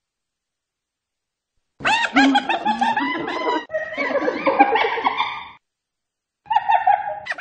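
Hyena giggling 'laugh': a quick run of pitched notes rising and falling, starting about two seconds in. After a short pause a second, shorter call comes near the end.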